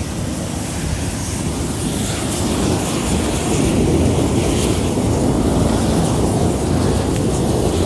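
Steady, loud rushing roar of a wildfire burning through trees and buildings, with a venting propane tank flaring nearby.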